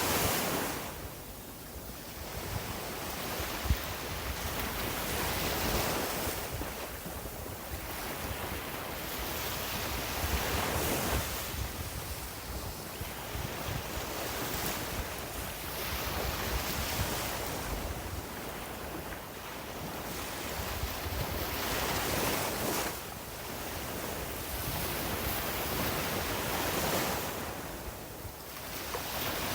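Sea waves breaking and washing up a beach, a surge every four to six seconds that swells and fades, with wind buffeting the microphone.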